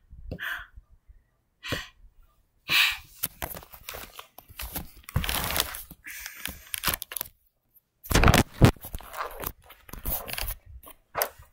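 Irregular rustling, scraping and knocks of handling noise close to the microphone as the recording device is picked up and moved.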